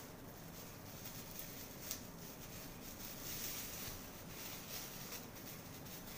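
Faint rustling and crinkling of clear plastic wrapping being handled and pulled off a flexible tripod, with a few small scattered clicks.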